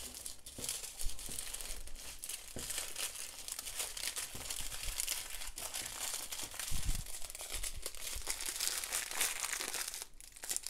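Small clear plastic bags of diamond painting drills crinkling as they are handled and sorted, a dense crackle that eases off near the end.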